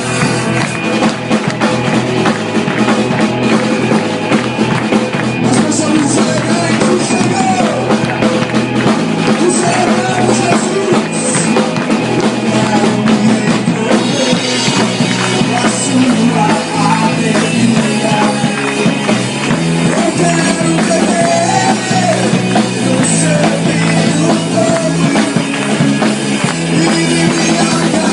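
Upbeat rock-style music with a drum kit and a singing voice, playing steadily throughout.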